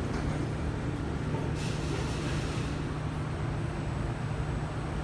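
Interior running noise of a KSF CT251 metro train in a tunnel: a steady low rumble from the wheels on the track, the heavy rumble that the title puts down to flat-spotted wheels. A band of hiss rises over it about one and a half seconds in and fades about a second later.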